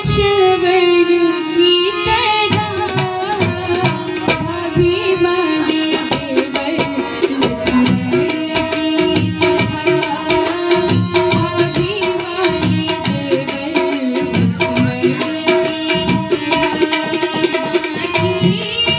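Harmonium playing a sustained reedy melody over a quick, steady hand-drum rhythm, accompanying a devotional folk song. A fast, bright ticking joins about halfway through.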